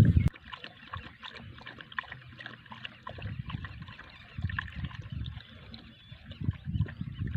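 Small trickle of water from a toy hand pump's spout into a little clay bowl, with scattered tiny splashes and clicks and a few soft low swells.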